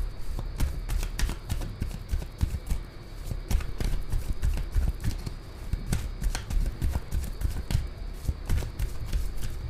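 A deck of tarot cards being shuffled by hand: a steady run of irregular soft card clicks and flicks, with low thumps of handling underneath.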